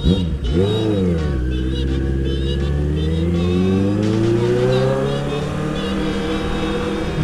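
Kawasaki Z800 inline-four engine blipped twice in quick succession, then pulling steadily higher in pitch as the bike accelerates through a gear, levelling off near the end.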